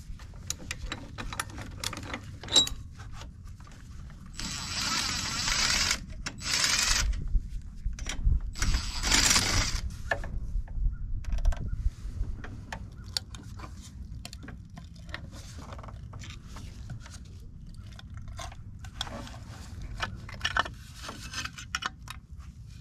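Hand ratchet clicking in three spells as the valve cover bolts on a Honda HRX217 mower engine are loosened. Scattered metal clicks and clinks follow as a screwdriver pries the valve cover off.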